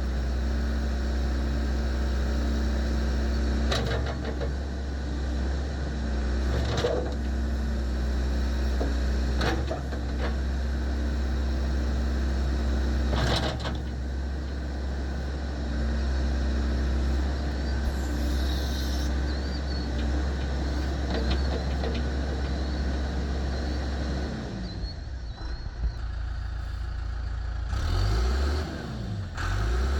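John Deere 410G loader backhoe's 4.5-litre four-cylinder turbo diesel running steadily, with a few sharp knocks. About 24 seconds in the steady engine note breaks off, and the sound turns uneven, rising and falling in pitch near the end.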